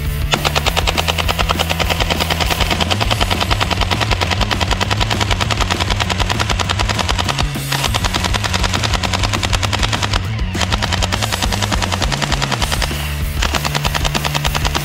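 Toy AK-47-style blaster firing long rapid full-auto bursts, with short breaks about halfway through, near ten seconds and shortly before the end. Background music with a steady bass line plays underneath.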